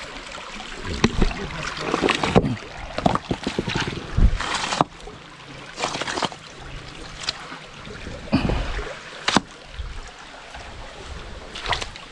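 Footsteps scuffing and knocking over river stones, about one a second, with water and wind rushing on the microphone.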